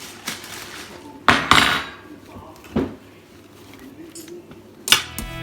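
Kitchen clatter of dishes, pans and utensils being handled: a few sharp knocks and clinks, loudest about a second and a half in, with another near the end.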